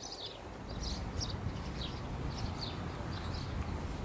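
Small birds chirping in short repeated high notes over a steady low rumble that comes up about a second in.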